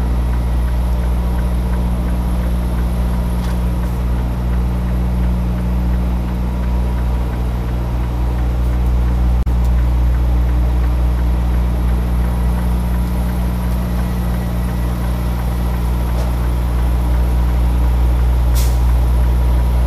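Semi-truck's diesel engine running at a steady low idle, with a short high hiss near the end.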